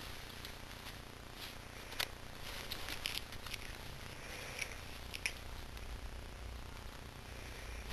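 Quiet rustling with a few faint crackles as bedding and a small plush toy shift under a cat's movements.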